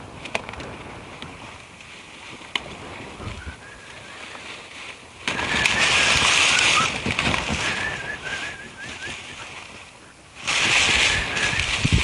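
Two spells of rustling that start suddenly, about five seconds in and again near the end, over a faint thin whistle that wavers in pitch through the middle.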